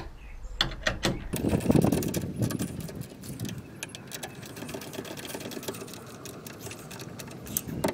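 Bolts being tightened by hand with an Allen key and a 17 mm socket wrench: quick runs of metallic clicks and clinks of steel tools against the steel mounting plate.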